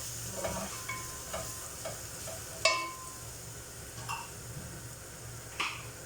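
Garlic sizzling in a little oil in a pan, stirred with a metal utensil that clicks and scrapes against the pan, with two louder clanks, one near the middle and one near the end.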